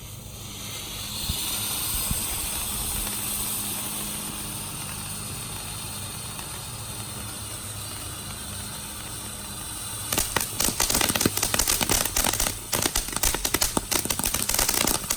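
Small Showtime Fireworks Poco Diablos fountain firework spraying with a steady hiss. About ten seconds in it breaks into dense, rapid crackling that lasts to the end.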